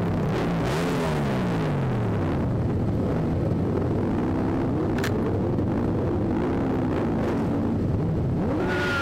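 Several motorcycle engines running together, their pitches rising and falling as bikes rev and pull away past. A single sharp click comes about five seconds in.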